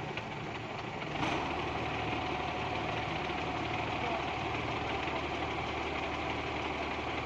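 Truck engine running steadily at low revs, a little louder from about a second in.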